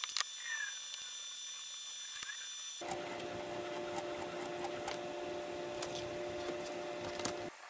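Faint handling and marking out of an aluminum bar at a workbench: light scratching, rubbing and small taps. About three seconds in, a steady hum with a few held tones starts, and it cuts off shortly before the end.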